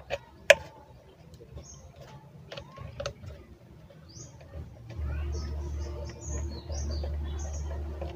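Sharp clicks and taps as a screwdriver works at a blender's switch and wiring, the loudest about half a second in, with small birds chirping in the background. A steady low rumble starts about halfway through.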